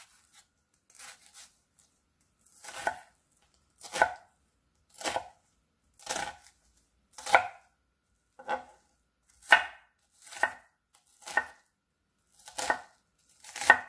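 Chef's knife cutting a small onion on a wooden cutting board: slow, separate cuts about one a second, each a short knock of the blade through the onion onto the wood.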